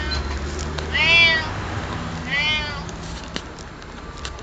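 Domestic cat meowing twice, each call rising then falling in pitch, the first about a second in and louder than the second, over a low steady hum.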